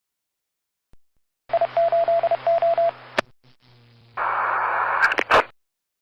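Radio transmission sound effect. A burst of static carries a rapid string of short beeps, then a click and a quieter hiss. A second, louder burst of static follows, ending in sharp clicks and cutting off suddenly.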